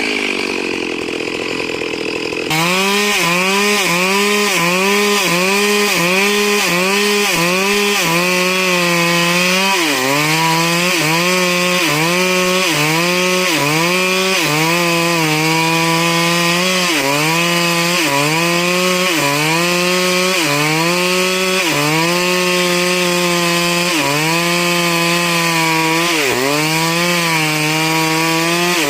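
Stihl MS 382 two-stroke chainsaw running at full throttle and cutting wood, its engine note sagging and recovering about once a second as the chain takes load. The first two seconds or so are quieter before the saw comes in suddenly louder.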